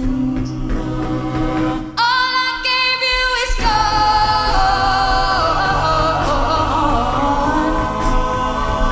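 A cappella group singing a pop song: a female lead over sung backing harmonies and a low bass voice. About two seconds in the low voices drop out, leaving a high held chord, and the full group with the bass comes back in about a second and a half later.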